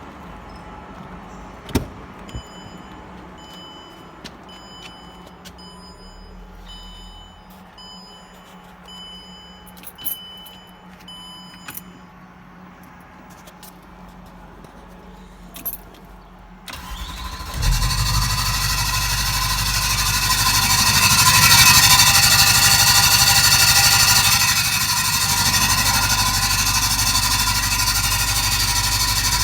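A Range Rover L322 is started about halfway through, after a quieter stretch with a few clicks and a series of short electronic beeps. Once it is running, a loud high-pitched squeak rides over the engine, a noise the owner suspects comes from the gearbox.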